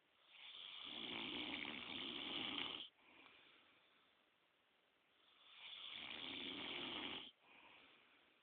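A man snoring in his sleep: two long snores about five seconds apart, each lasting about two and a half seconds and cutting off sharply, each followed by a fainter breath.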